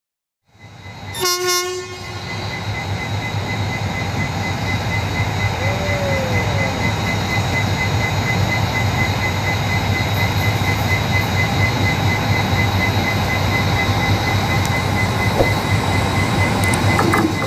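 Indian Railways train horn sounding briefly about a second in, then the steady running noise of a passing train on the track, slowly growing louder.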